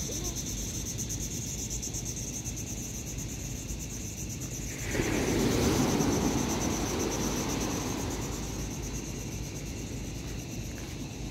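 Insects trilling steadily in a high, rapidly pulsing chorus over the low rush of surf; about five seconds in a louder wash of surf swells up and fades away over a few seconds.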